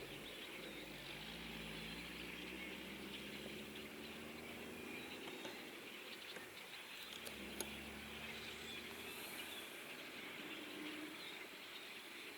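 Faint hum of farm machinery engines working a cornfield, the pitch rising slowly a couple of times, over a steady high hiss.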